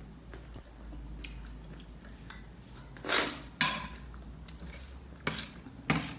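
Someone eating close to the microphone: soft chewing with a few short, louder bites in the second half.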